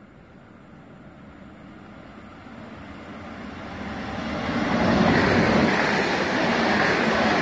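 ICE high-speed train coming in along the platform: a rushing noise that swells steadily over about five seconds as it approaches, then stays loud as the carriages go by.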